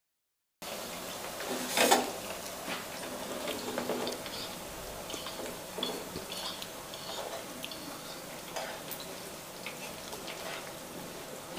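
Jalebis sizzling as they fry in hot ghee in a nonstick frying pan, with metal tongs clicking and scraping against the pan as they are turned; the loudest clack comes a little under two seconds in.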